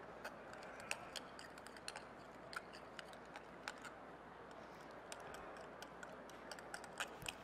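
Faint, irregular taps of a chef's knife on a wooden cutting board as roasted red pepper is chopped, a few clicks a second at most and coming closer together near the end, over a low room hum.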